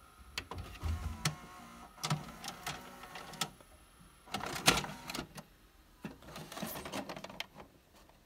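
VHS video cassette recorder ejecting a tape: the loading mechanism whirs with a run of mechanical clicks and clunks as the cassette is unloaded and pushed out, the loudest clunk about halfway through, followed by clatter of the plastic cassette.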